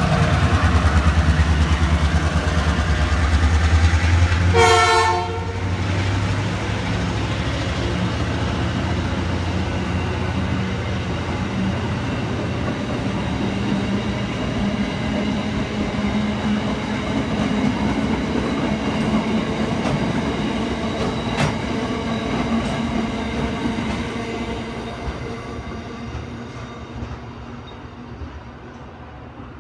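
Queensland Rail diesel locomotive's engine running loudly as it passes, with a short toot about five seconds in, then its train of flat wagons rolling by with a steady wheel rumble, clicks over the rail joints and light squeals, fading away near the end.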